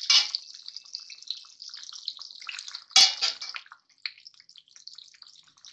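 Tomato-based pea and mushroom gravy bubbling and spitting in an uncovered pan on a low flame, a crackly hiss. There is a loud clatter right at the start and a sharp knock about three seconds in as the spoon goes into the pan to stir.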